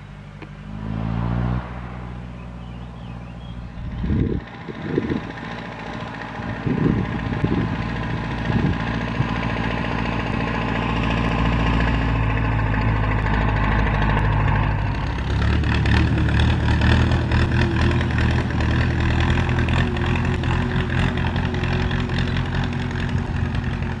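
MTZ 552 tractor's diesel engine running steadily, its pitch rising briefly near the start, with a few low thumps a few seconds in. It grows louder and rougher after the middle as the tractor comes close.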